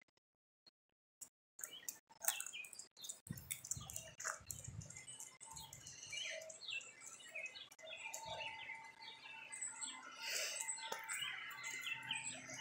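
Faint, busy chirping of small birds, starting about a second and a half in, with scattered clicks and rustles mixed in.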